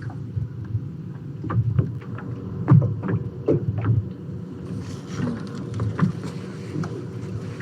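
A small fishing boat on the water: a steady low hum carrying a few faint steady tones, with scattered light knocks and taps and a soft hiss about five seconds in.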